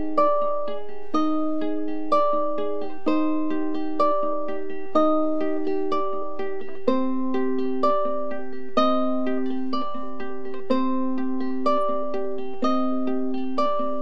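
Ukulele plucked in a steady, repeating pattern of single notes and chords, with an accented pluck about once a second.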